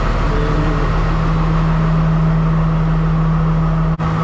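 Diesel locomotive engine idling with a steady low drone, broken for an instant near the end.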